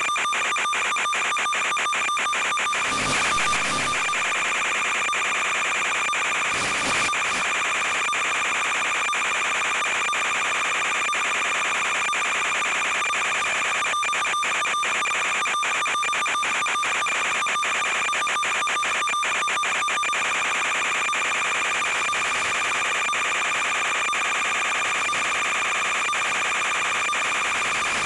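Steady electronic whine at several fixed pitches over hiss and dense crackling static, the noise of a quadcopter's analog FPV video link audio. There are two brief louder bursts of noise about three and seven seconds in.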